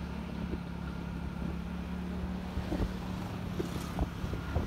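Motorcycle engine running steadily while riding at an even pace, with road noise and a few faint small knocks.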